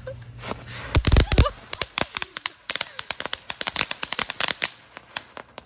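Small ground firework going off: a few loud bangs about a second in, then a rapid, irregular run of sharp crackling pops that thins out near the end.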